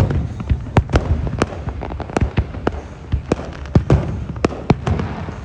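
Fireworks going off: a rapid, irregular string of sharp bangs, several a second, over a low rumble.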